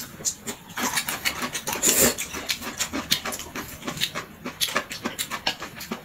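Close-up eating sounds: noodles being slurped and chewed with wet, irregular mouth clicks and lip smacks.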